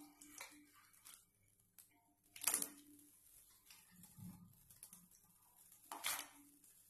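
Raw potato sticks being dropped and pressed by hand into a steel pot of hot water: faint sloshing and light clatter, with two sharper splashes about two and a half seconds in and about six seconds in.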